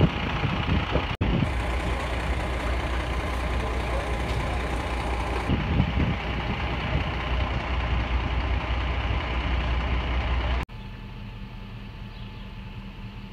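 Aerial ladder truck's diesel engine running with a steady low drone. About ten and a half seconds in, it cuts off abruptly to a quieter, steady engine hum.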